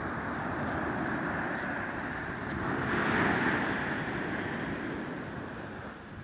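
Sea waves washing onto the beach, swelling to a peak about three seconds in and easing off near the end.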